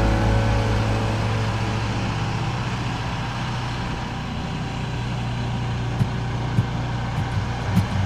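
Mahoe Minimax portable sawmill's engine running steadily, with a few sharp clicks in the last couple of seconds.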